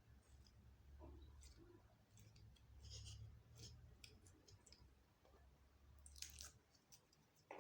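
Faint, scattered squelches and small sticky clicks of slime being squeezed and mixed by hand.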